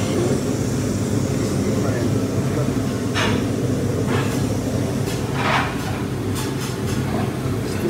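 Steady low machine hum, with two brief brighter noises about three and five and a half seconds in.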